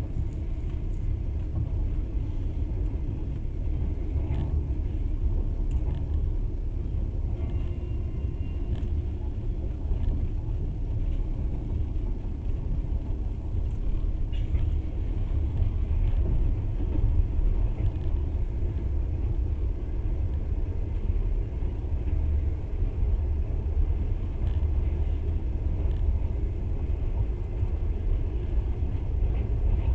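Passenger train running at speed, a steady low rumble of wheels on rails heard from inside the carriage, with a few faint clicks.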